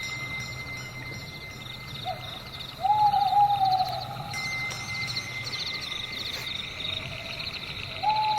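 Night forest ambience: crickets trill continuously with rapid high chirps, while an owl hoots: a brief hoot about two seconds in, a longer, louder falling hoot about three seconds in, and another just before the end.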